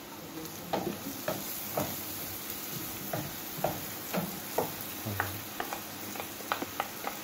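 Butter and garlic sizzling in a frying pan as chopped scallion is scraped in from a glass bowl, with a wooden spoon tapping irregularly against the bowl and pan.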